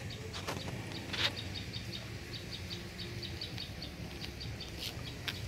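Rapid, even chirping, about five short high chirps a second, over a steady low rumble, with a few sharp clicks.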